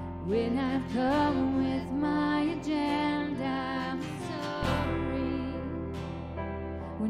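Slow worship song with strummed acoustic guitar over a steady bass, and a gliding, sustained melody line that sounds sung.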